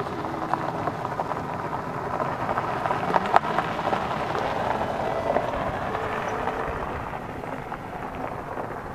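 SUV driving past on a gravel road: tyre noise and the crunch and tick of loose gravel, rising as it comes close about three to four seconds in, then fading away.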